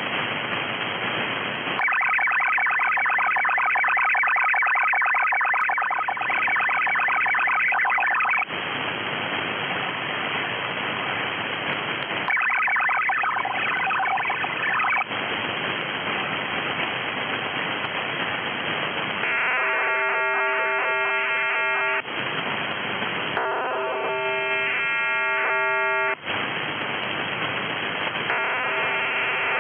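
Shortwave radio in upper sideband: five bursts of multi-tone digital data, MIL-STD-188-141 ALE link calls and MSM 1250 Skyfax file-transfer tones, each lasting a few seconds and separated by stretches of static hiss.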